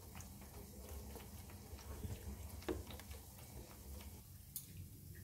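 Steel spoon stirring thin semolina batter in a bowl: faint, irregular light clicks and scrapes of the spoon against the bowl.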